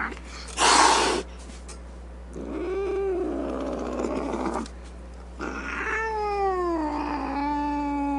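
Cat yowling. A loud, brief hiss-like burst comes about a second in, then a meow that rises and falls, and from about five and a half seconds a long drawn-out yowl that drops in pitch and then holds steady.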